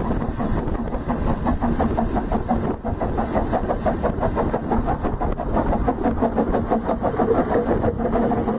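Narrow-gauge steam locomotive hauling its train, its exhaust chuffing in rapid, even beats several times a second, with steam hiss.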